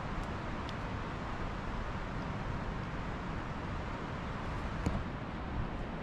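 Strong wind, about 40 to 45 mph, rushing through tall trees: a steady noise, heaviest in the low end. One small click about five seconds in.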